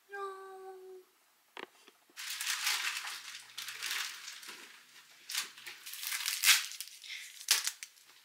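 A short hummed note held for about a second, then a click and several seconds of irregular rustling and crinkling close to the microphone.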